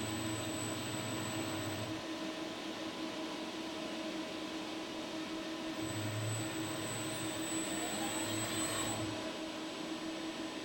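ABB IRB 1600 industrial robot's joint servo motors running as the arm moves between poses: a low hum that comes and goes with each move, and a whine that rises in pitch about seven to nine seconds in, over a steady background hum.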